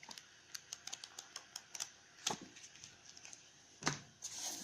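Light clicks and taps from the contents of the box being handled, with two louder knocks about two and four seconds in, and a rustle of packaging near the end.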